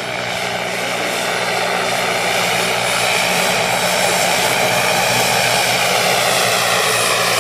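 Bell 412 helicopter flying past: the whine of its twin-turbine engine and the noise of its rotor. It grows louder over the first three seconds as the helicopter approaches, then holds steady.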